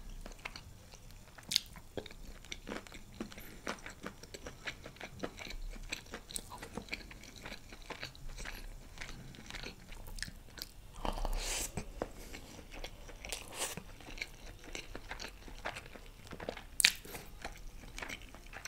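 Close-miked chewing of a mouthful of chicken biryani, with many small, irregular mouth clicks and wet chewing sounds; a louder stretch about 11 seconds in and a sharp click near the end.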